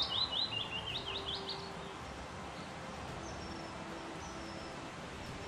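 A songbird singing a quick run of high notes that steps down in pitch and ends in a short burst of rising notes within the first two seconds, followed by a few faint high calls. Under it is a steady outdoor hiss.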